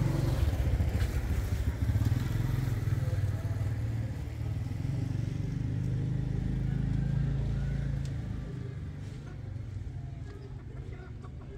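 Motorbike engine running steadily, growing fainter after about eight seconds.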